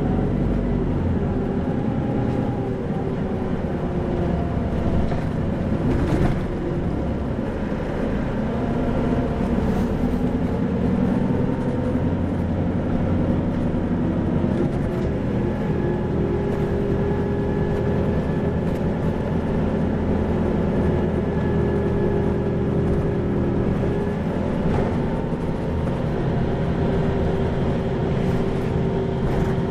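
Isuzu 2PG-LV290N3 city bus running on the road, its turbo-diesel four-cylinder engine giving a steady hum over a low rumble. The engine note shifts pitch a few times as the bus changes speed.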